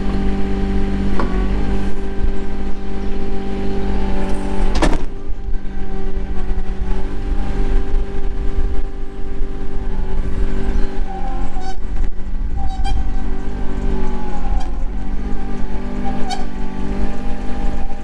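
Cast compact pivot-steer loader's engine running close by at a steady pitch, with one sharp clank about five seconds in. The engine note wavers and shifts in the middle as the loader moves off.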